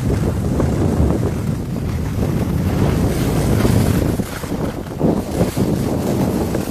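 Wind buffeting the microphone of a camera carried by a skier going downhill, a heavy uneven rumble, with the hiss of skis sliding over snow swelling about halfway through.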